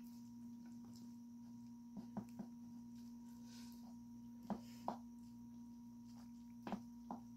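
Wooden spoon clicking and scraping against a bowl while mixing rice, a few short knocks in small clusters spread over several seconds. A steady faint hum runs underneath.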